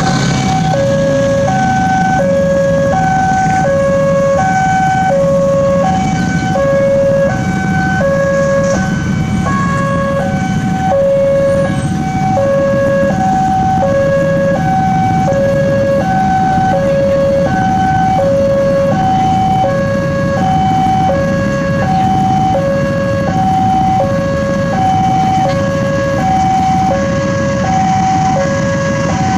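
Railway level-crossing warning alarm sounding a steady electronic two-tone chime, alternating evenly between a high and a low note, which signals an approaching train with the barriers down. A low steady rumble runs beneath it.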